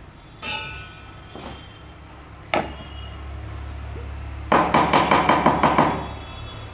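Hard objects knocking: a ringing clink, a sharp click a couple of seconds later, then a quick rattle of about ten knocks at about six a second, lasting under two seconds.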